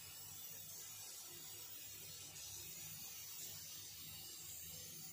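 Quiet room noise: a faint steady hum and hiss, with no distinct sounds standing out.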